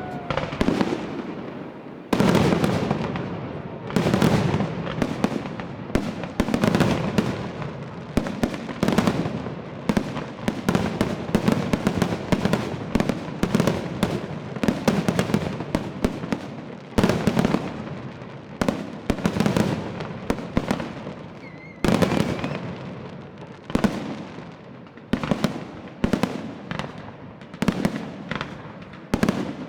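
A fireworks display: a rapid run of aerial shell bursts, several bangs a second, with crackling and a low rumble between them. Heavier volleys of bangs come about two, four, seventeen and twenty-two seconds in.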